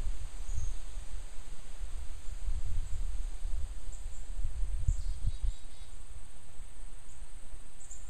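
Wind blowing through woodland trees, heard mostly as gusty low rumbling of wind on the microphone, with a steady high-pitched insect chirring underneath.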